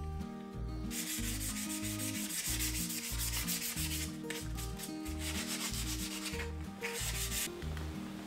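Steel handle being scrubbed by hand with a wire brush in quick back-and-forth strokes, in several spells, over background music with a steady bass beat.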